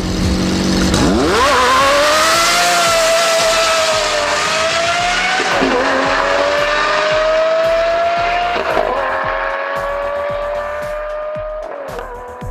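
Sports car engine revving up and accelerating, its pitch dropping and climbing again twice as it shifts up through the gears, then fading near the end.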